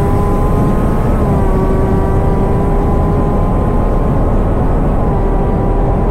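Engine held at steady high revs, giving a constant whine over heavy low wind rumble; the pitch dips slightly about a second in and again near the end.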